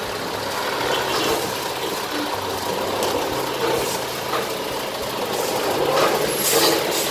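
Diesel engine of a truck-mounted concrete boom pump running steadily, with a few sharp clanks over it.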